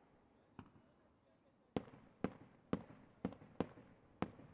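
Fireworks exploding: one faint bang, then after a short lull a run of sharp, loud bangs about every half second.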